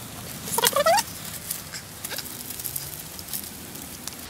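Hands knotting a cord onto a bent wooden branch to string a makeshift bow: faint rustling and small clicks of handling, with one short rising squeak a little over half a second in.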